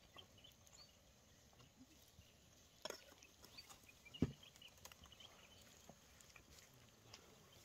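Near silence with faint, scattered high chirps, broken by two light knocks, the sharper and louder one about four seconds in.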